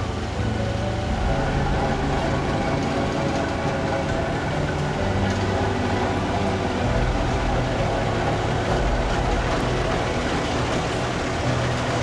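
Skid-steer loader with a cold-planer milling attachment working asphalt at the road edge: its diesel engine runs steadily under load over a grinding noise, the engine note shifting up and down several times.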